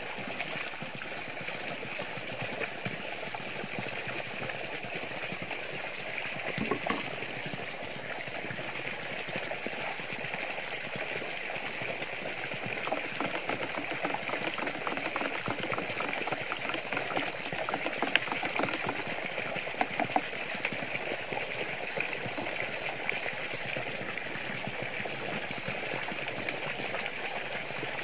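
Water running steadily from a hose pipe into a plastic barrel and splashing over, with a few short knocks along the way.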